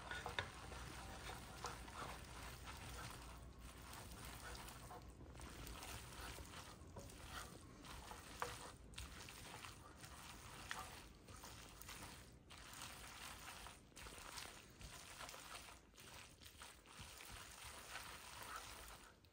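Faint sound of metal tongs tossing spaghetti with a pecorino cream in a hot pan: soft stirring, with scattered clicks of the tongs against the pan over a light sizzle.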